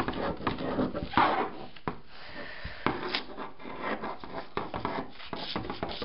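Scissors cutting through a large sheet of pattern paper: a run of irregular snips of the blades with the paper rustling as it is cut and moved.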